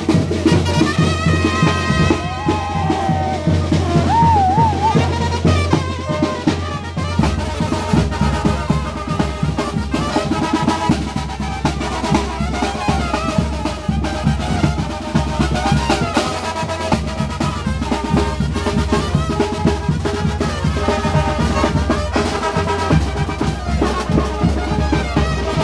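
A street band of drums and horns playing live, with a steady bass-drum beat and a short warbling high note about four seconds in.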